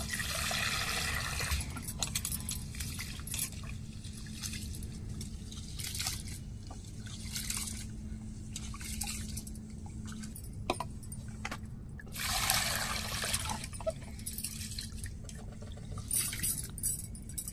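Water poured from a plastic pot into a steel bowl of basmati rice, then hands swishing and rubbing the rice in the water to wash it, with small splashes and clinks against the steel bowl. Another spell of pouring comes about twelve seconds in.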